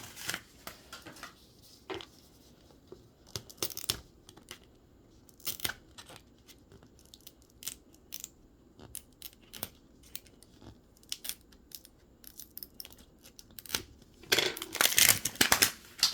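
Plastic wrapping being torn open and crinkled while a Mini Brands capsule ball is unwrapped, with scattered rustles and small plastic clicks. A longer, louder stretch of tearing and crinkling comes near the end.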